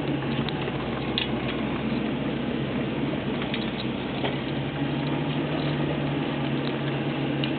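Cabin sound of a 2004 Honda Civic Si hatchback on the move: a steady engine hum under road and tyre noise, with a few faint ticks or rattles.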